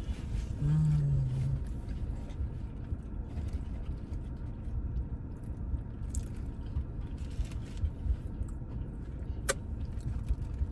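Steady low rumble, like a car's idling engine heard from inside the cabin, with a short low hum about a second in and one sharp click near the end.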